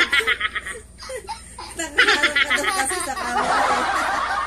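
A young girl laughing hard in two fits of quick repeated ha-ha pulses, one at the start and another about two seconds in, trailing off into breathy laughter near the end.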